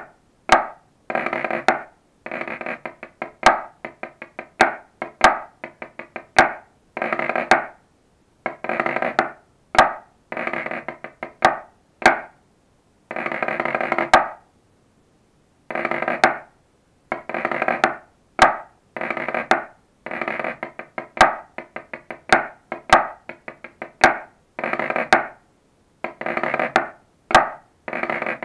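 Pipe-band snare drum part played with two sticks on a coated-head practice pad. Short, dense rolls alternate with sharp single strokes in a steady rhythm, with a brief pause just past halfway.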